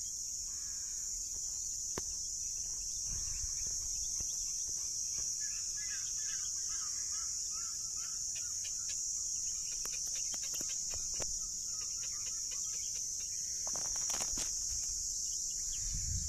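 Outdoor ambience by a pond: a steady, high-pitched insect drone throughout, with birds chirping in the middle few seconds.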